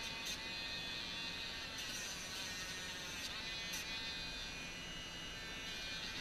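Handheld electric nail grinder running with a steady high whine as it files a dog's toenails, its pitch wavering slightly as it is pressed to the nail.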